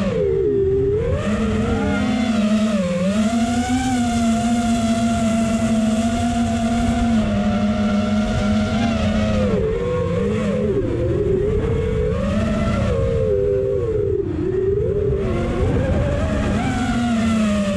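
FPV racing quadcopter's electric motors whining as it flies, the pitch rising and falling with the throttle, with several deep dips where the throttle is cut back and then picked up again.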